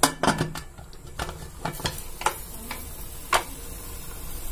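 Aluminium pressure cooker lid being closed and locked: about a dozen sharp metal clicks and clinks, irregularly spaced, the loudest at the start.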